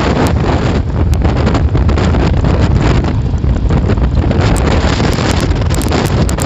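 Wind buffeting the microphone of a camera carried on a moving open vehicle: a loud, steady rumbling rush of air and road noise.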